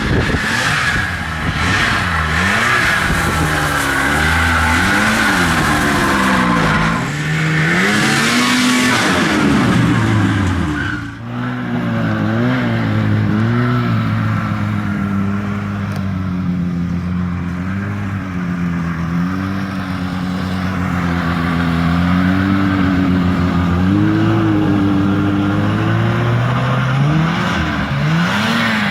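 1980 Ski-Doo Everest 500 snowmobile's two-stroke twin engine running, its revs rising and falling again and again, with a brief drop about eleven seconds in. It is running after 26 years unused, following a rebuild that freed the seized engine.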